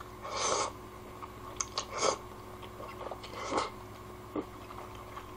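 A person slurping and chewing kalguksu noodles from a bowl: three slurps about a second and a half apart, with a few short clicks between them.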